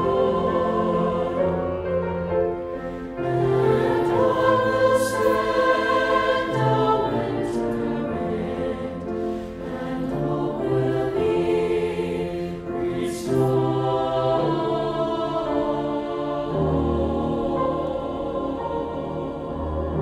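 Mixed choir singing a sacred choral song, accompanied by piano and cello.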